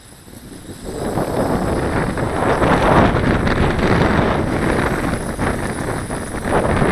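Strong gusty wind buffeting the microphone: a heavy, rumbling rush that swells up about a second in and stays loud and uneven.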